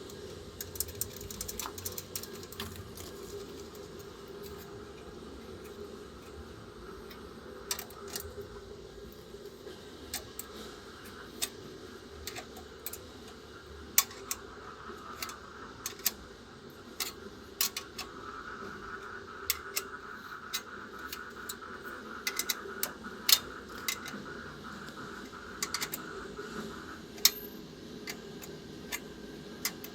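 Irregular sharp clicks and clinks of hand tools and metal parts being handled during installation work, over a steady low hum. A faint higher whir runs from about halfway in until near the end.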